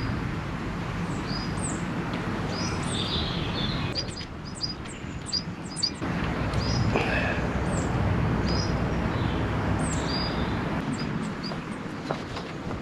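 Small songbirds chirping repeatedly in short high calls, over a steady low background rumble. A few sharp clicks are heard midway and near the end.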